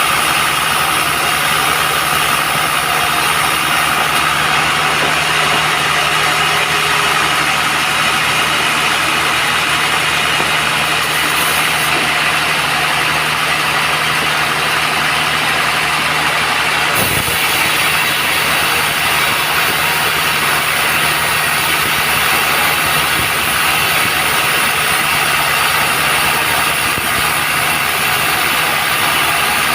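Band sawmill running with a steady, unbroken mechanical drone.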